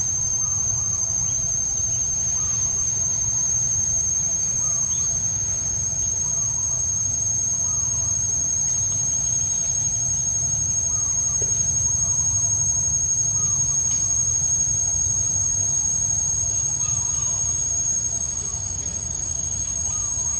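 Steady, high-pitched drone of insects that does not let up. Faint short chirps come and go now and then, over a low rumble.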